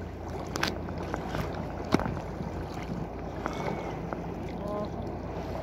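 Choppy lake water lapping and splashing against a sea kayak's hull, with a steady low wind rumble on the microphone. There is a sharp knock about two seconds in.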